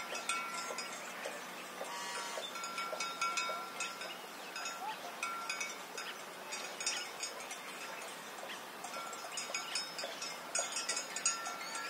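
Countryside ambience: cowbells clinking and ringing on and off, with birds chirping and a dense layer of high-pitched chirps and clicks.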